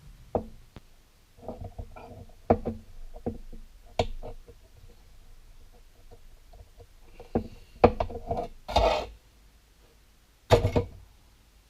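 Scattered knocks and taps of objects being handled, with a denser clatter and a short scraping rustle about eight to nine seconds in and one last short clatter near the end.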